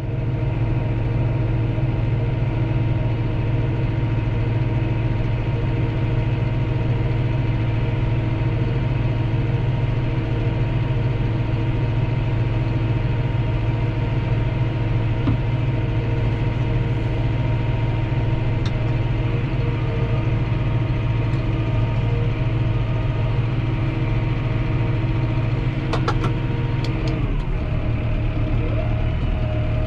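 Tractor engine running steadily while ploughing. A few sharp clicks come near the end, and then the engine note drops.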